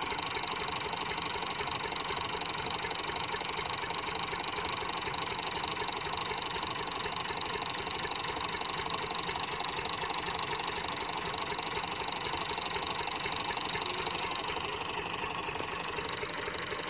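Massey Ferguson 240 tractor's three-cylinder diesel engine idling steadily, with an even low pulse and no revving.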